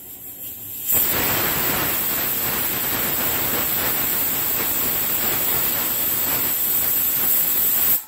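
Pigeon pressure cooker's weighted whistle valve blowing off steam: a hiss builds, then about a second in a loud, steady, shrill steam whistle starts and holds before stopping abruptly at the end. The whistle means the cooker has reached full pressure.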